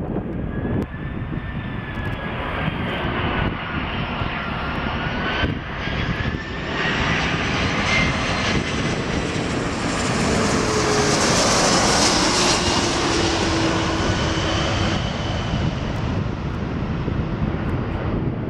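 Four-engine Airbus A340 jet airliner passing low overhead on final approach with its landing gear down: a steady jet engine roar carrying a whine. It swells to its loudest about eleven to twelve seconds in, and the whine falls in pitch as it goes past.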